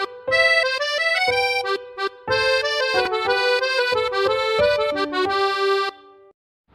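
Intro music: an instrumental tune with a reedy, accordion-style melody in short phrases, stopping about six seconds in.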